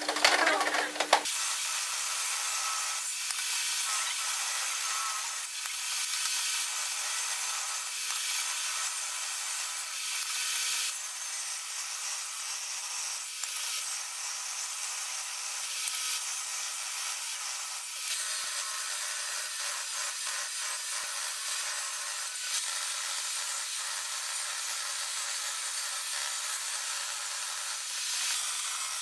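A short clatter, then a table saw ripping pallet-wood boards: a steady, even sawing noise with no low rumble under it.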